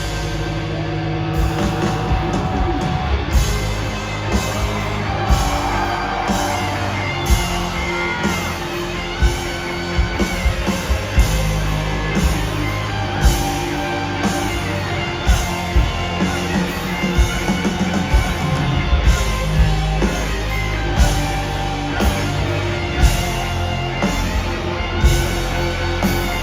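Rock band music: electric guitar over a steady drum beat, with some singing.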